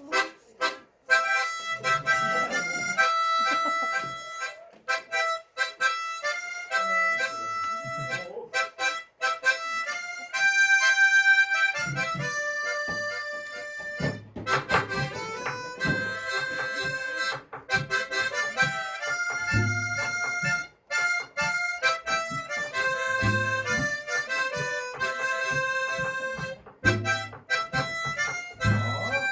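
Harmonica and recorder playing a tune together, the harmonica sounding notes and chords, with occasional low thumps in the second half.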